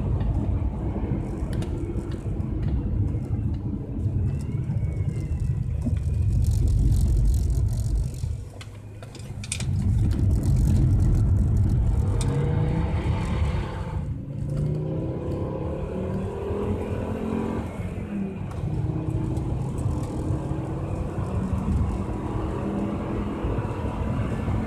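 Car engine and tyre noise on a wet track, heard inside the cabin. The engine eases off briefly about eight seconds in, then the revs climb through the gears, with breaks for gear changes about fourteen and eighteen seconds in.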